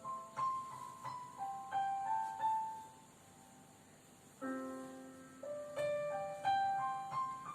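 Piano introduction to a slow song: single melody notes struck one after another and left to ring. After a short pause there is a low chord about four and a half seconds in, and the melody picks up again.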